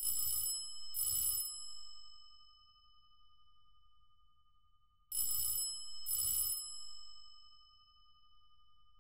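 Telephone bell ringing: two short metallic rings about a second apart, then the same pair again about five seconds later.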